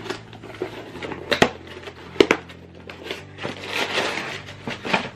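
Objects being handled at close range: a few sharp clicks and knocks with rustling between them, over a faint steady low hum.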